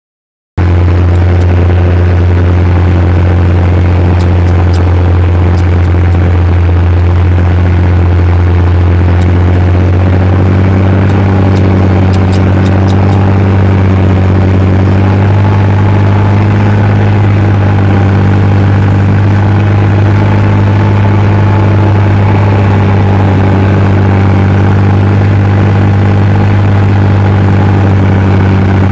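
Fiat 1380 tractor's six-cylinder diesel engine running steadily under load, driving a PTO power harrow, heard from inside the cab.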